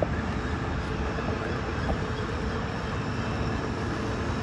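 Steady car running noise, a low engine and road rumble, as heard from inside the moving car.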